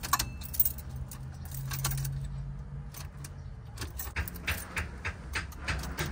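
Ignition keys jangling on their ring with sharp clicks as the key of a 1972 Impala is worked repeatedly, the clicks coming thickest in the second half; the engine does not start, which the owner puts down to a failed starter.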